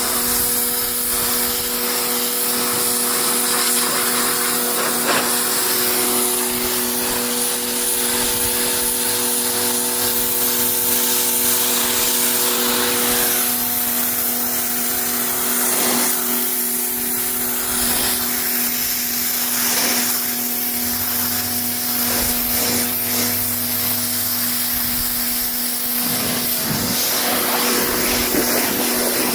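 Battery-powered pressure washer running steadily: a constant motor-pump hum under the hiss of the water jet spraying into car carpet and seat fabric.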